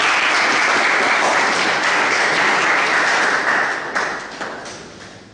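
A roomful of students applauding, the clapping steady and dense for about four seconds, then thinning and dying away.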